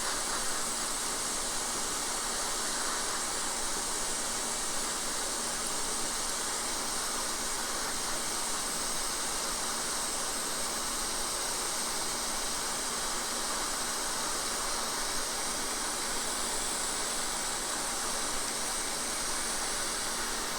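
Hot-air rework station blowing a steady hiss of air onto a circuit board, heating the solder under a chip to lift it off.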